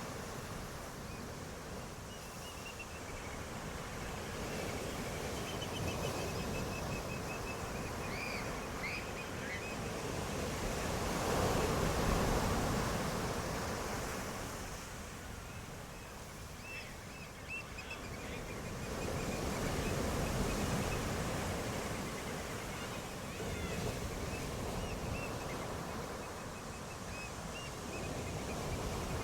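Ocean waves surging and washing onto the shore, swelling loudest twice. Faint high chirping runs through it.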